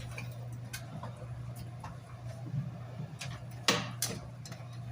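Indoor room tone: a steady low hum with scattered, irregular clicks and ticks, one sharper click just before four seconds in.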